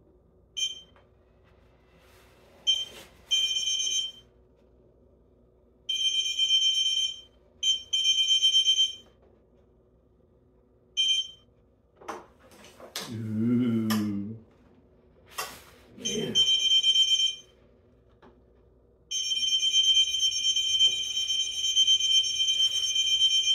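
KingSong 16X electric unicycle sounding its high-pitched warning beep right after power-up, in on-off bursts of one to four seconds and one long continuous burst near the end. About halfway through there is a brief lower sound with a wavering pitch.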